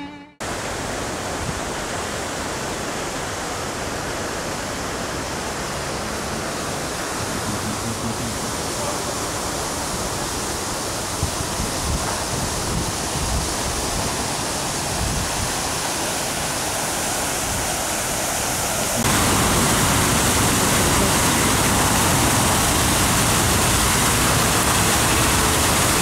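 Fountain water splashing into a stone basin: a steady rushing noise, stepping up louder about 19 seconds in.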